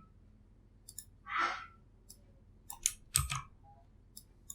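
Scattered clicks from a computer keyboard and mouse, a few sparse taps with a louder cluster of clicks and a low thump about three seconds in.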